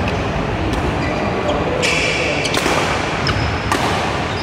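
Badminton rackets striking the shuttlecock in a fast doubles rally: a sharp crack roughly every second, with a few short high squeaks between hits, over a steady hall noise.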